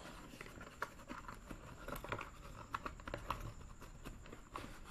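Faint, irregular small clicks and rustles, like light handling noise of wires and parts, over quiet room tone.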